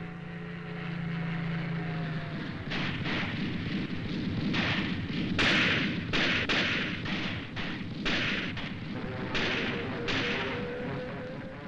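Rifle fire aimed at an aircraft: a ragged series of about a dozen loud shots and blasts, starting about three seconds in and thinning out near the end, over a steady low rumble.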